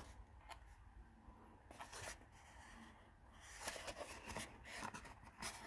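Faint rustling and scraping of fingers handling and turning an empty cardboard perfume box, in a few short bursts, the sharpest near the end.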